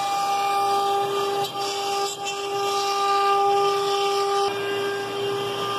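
CNC router cutting plywood, with its vacuum hold-down pump running: a steady high whine over the rushing noise of the cutter in the wood. The cutting noise eases about four and a half seconds in while the whine carries on.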